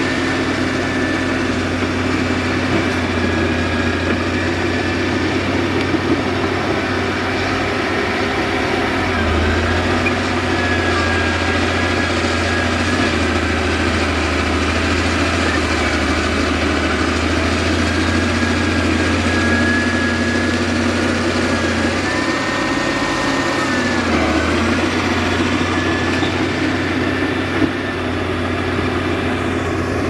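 Caterpillar D6D bulldozer's diesel engine running steadily while working, with a thin high whine over the engine note. The engine note briefly changes a little over twenty seconds in.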